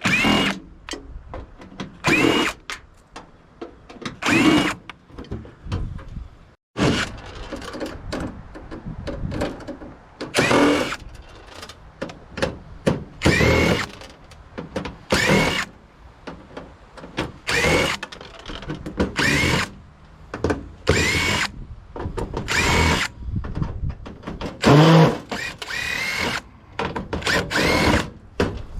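A power drill run over and over in short bursts, each spinning up in pitch and then stopping, as the tool works on a microwave's casing.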